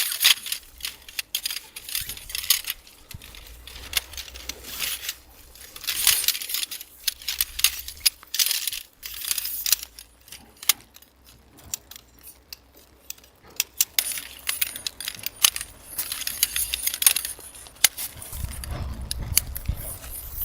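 Irregular light clicks and clinks with rustling throughout, and a low rumble rising near the end.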